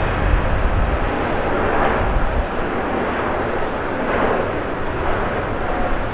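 Japan Airlines Airbus A350-900's Rolls-Royce Trent XWB turbofans at takeoff thrust as the airliner rotates and lifts off: a steady jet rush with a deep rumble that eases after about two and a half seconds.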